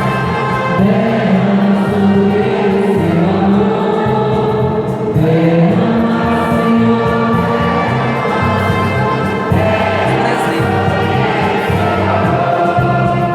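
A choir singing a church song in long held notes that step to new pitches every second or two.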